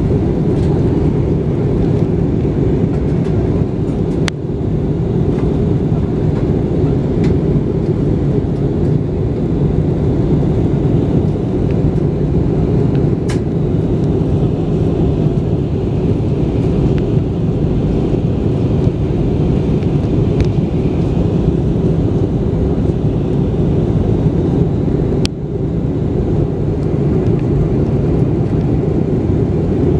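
Steady low rumble of engine and airflow noise inside the cabin of an Airbus A320-214 descending on approach, with a few faint clicks.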